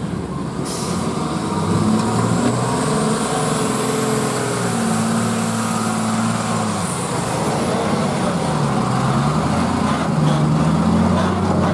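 Diesel engine of a 12-wheel Tata lorry pulling through mud, its revs rising and falling several times as the throttle is worked.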